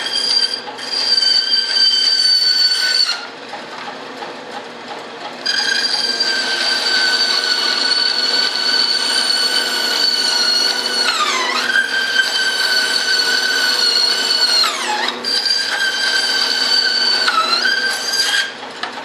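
Benchtop band saw running and cutting through a wooden wing frame: a steady high whine whose pitch sags three times in the second half as the blade takes the load of the cut, with a quieter stretch about three seconds in.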